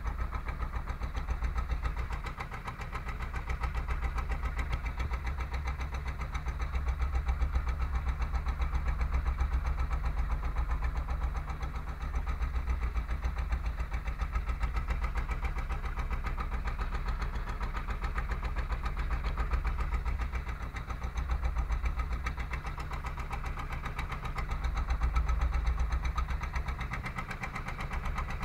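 A small fishing boat's engine running steadily as the boat motors along, a low drone whose loudness swells and eases every few seconds.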